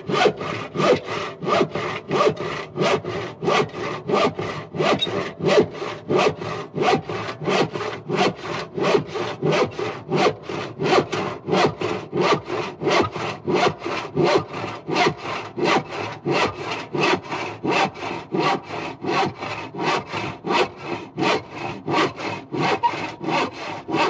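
Hand saw sawing with a steady rhythm of back-and-forth strokes, about two strokes a second, each stroke a rasping swish.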